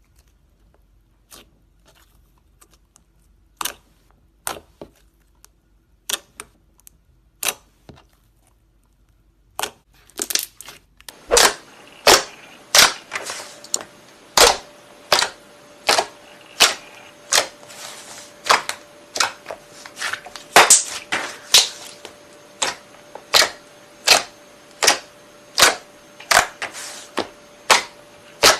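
Sharp snapping pops: a few scattered ones at first, then from about ten seconds in a steady run of about two a second over a faint background hiss.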